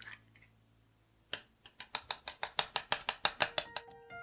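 An eggshell pulled open over a glass measuring cup at the start, then a whisk beating the egg in the glass cup: a quick, even clicking of about seven strokes a second against the glass. Soft music comes in near the end.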